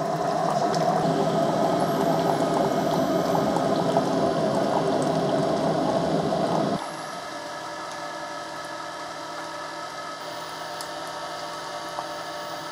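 Keurig K-Mini Plus single-serve coffee maker brewing: its water pump runs with a steady pitched hum as coffee streams into the mug, then cuts off suddenly about seven seconds in, leaving a fainter steady hum.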